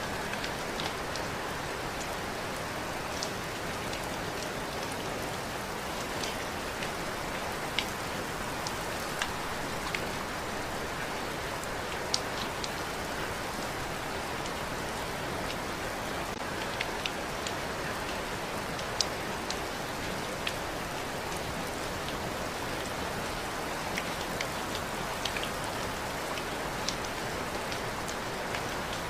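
Steady rain falling, a constant even hiss with scattered sharper drop ticks every second or so.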